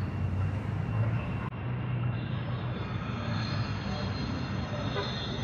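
Low, steady rumble of heavy street traffic passing, with a thin high-pitched squeal joining in about halfway through.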